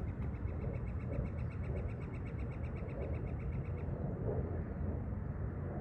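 A bird trilling: a rapid, even string of high notes, about ten a second, that stops about four seconds in, over a steady low outdoor rumble.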